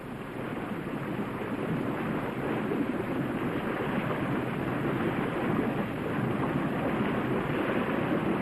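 Steady rush of a waterfall, growing a little louder over the first few seconds.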